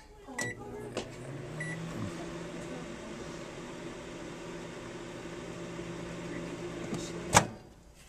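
Microwave oven: two short beeps in the first two seconds, then a steady low hum as it runs with a water-filled balloon inside. Near the end a sharp click as the door is opened, and the hum stops.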